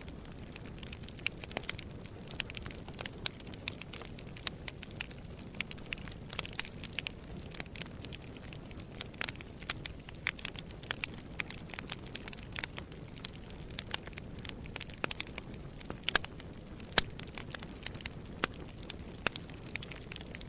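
Wood fire burning in a fireplace, with a steady low hiss and frequent irregular crackles and pops.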